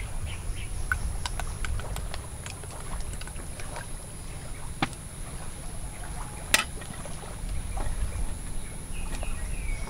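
Roast chicken being pulled apart by hand and eaten: scattered small clicks and smacks, one sharper click about six and a half seconds in, over a steady low rumble of wind on the microphone and a thin steady high whine.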